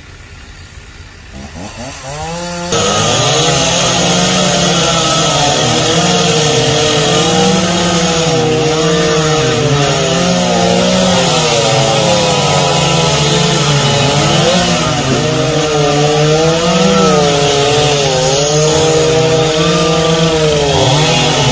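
Gasoline chainsaw winding up about two seconds in, then running at high speed as it cuts through a fallen tree trunk. Its pitch dips and recovers over and over.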